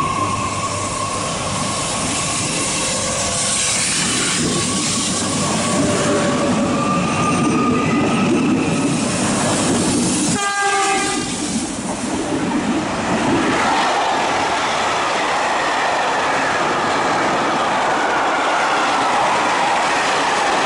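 A Régiolis regional electric train pulls out past the platform, its traction motors whining in a steady tone that creeps upward as it gathers speed. After an abrupt cut about halfway through, a long freight train of tank wagons rolls by with a steady rush of wheel-on-rail noise.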